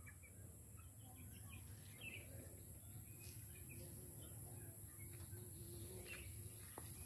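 Scattered faint bird chirps over a steady low background hum.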